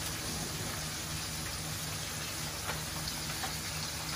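Chicken pieces frying in hot oil: a steady sizzle, with a few faint ticks.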